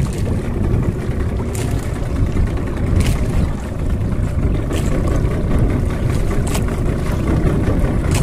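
Small fishing boat at sea: a steady low rumble, with a few short sharp clicks at intervals of a second or two.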